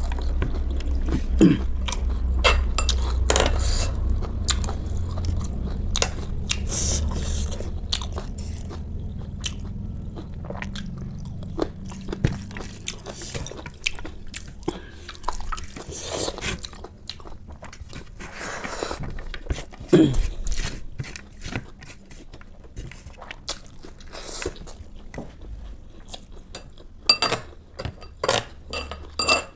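Close-miked eating: a person chewing and crunching food in irregular bites.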